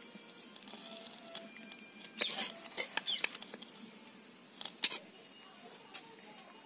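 Metal spatula scraping and clinking against a steel plate as curry is served onto it, with the sharpest clinks about two seconds and about five seconds in.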